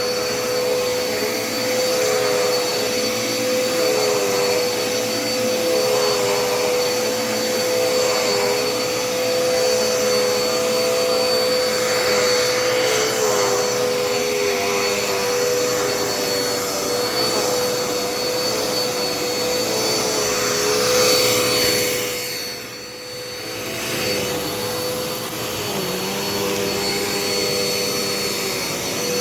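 Dirt Devil Endura Reach bagless upright vacuum cleaner running with a steady motor tone and rush of air. The sound drops away briefly about 22 seconds in, then comes back.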